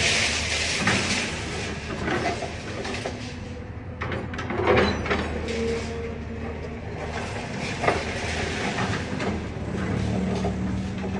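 Excavator engine running steadily, with scattered metallic knocks and scrapes and a brief squeal as the machine works through demolition debris.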